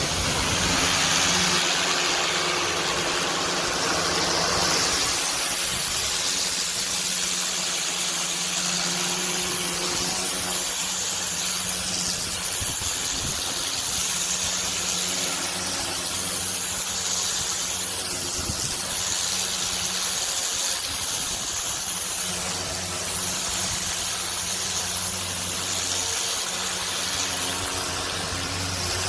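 Pressure washer spraying through a turbo nozzle: a steady hiss of high-pressure water over the constant hum of the machine running.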